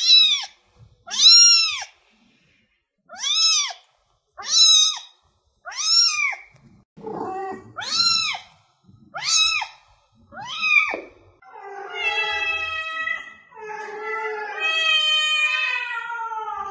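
Domestic cat meowing: about eight short, high-pitched meows with gaps between them, then from about 11 seconds in longer, lower, drawn-out yowling meows.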